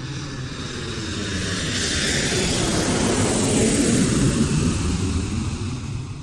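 Jet aircraft passing: a rushing engine noise that swells to its loudest about midway, then fades.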